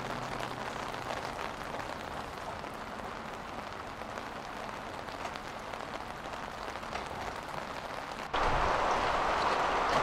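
Steady rain falling. A little over eight seconds in it cuts abruptly to a much louder, heavier downpour.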